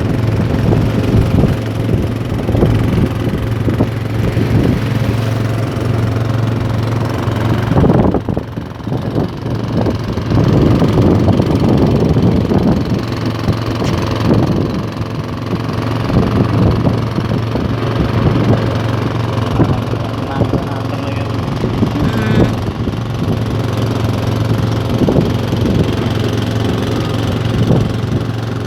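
A fishing boat's inboard engine running steadily, with an even low hum.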